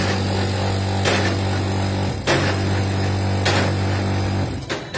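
Machine-driven pestle pounding dried mulberry and walnuts in a steel pot for lök: a steady machine hum with a sharp knock from a stroke about every 1.2 seconds. The hum stops near the end.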